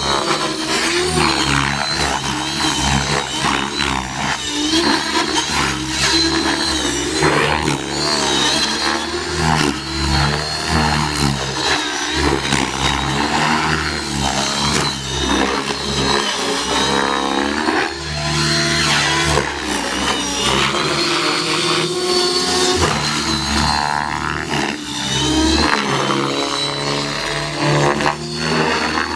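Radio-controlled helicopter in aerobatic flight: its motor and rotor blades run continuously, their pitch rising and falling over and over as it maneuvers, with a high whine running under it.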